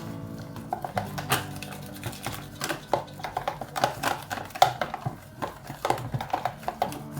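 Repeated clinks and knocks of kitchen utensils against dishes and pans, irregular and fairly close together, over soft background music.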